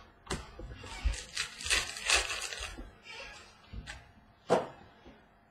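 Trading card pack wrapper crinkling and cards rustling and clicking as they are handled on a tabletop. This is followed by a sharp tap about four and a half seconds in.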